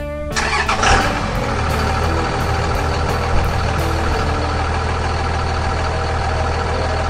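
Truck engine sound effect: the engine starts up with a short burst about half a second in, then runs steadily at idle with a deep hum.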